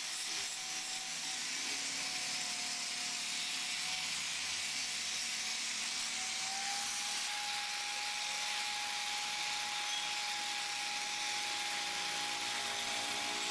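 Angle grinder with an abrasive disc working the face of an old steel cleaver blade: a steady grinding hiss over the motor's constant whine, which steps up slightly in pitch about halfway through.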